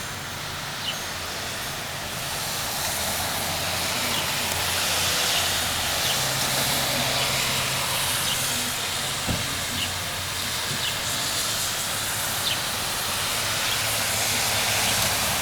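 Heavy rain coming down: a steady hiss that grows louder about two seconds in, with a few faint drip ticks.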